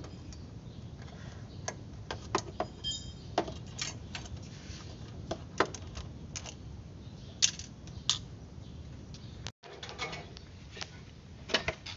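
Screwdriver working a metal hose clamp on a turbocharger hose: irregular sharp metallic clicks and taps, over a steady low hum.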